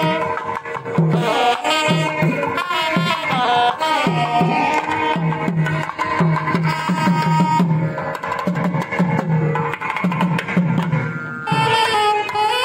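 Indian music: a drum keeps a steady beat under a bending melodic line. Near the end the drumming drops out and a brighter new melody begins.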